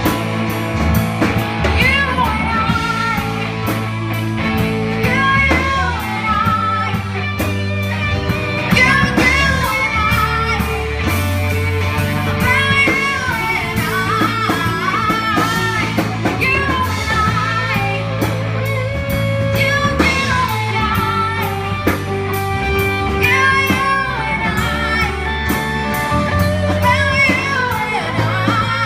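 Live rock band playing a song: a woman singing lead into a microphone over electric guitar, electric keyboard, bass guitar and drums.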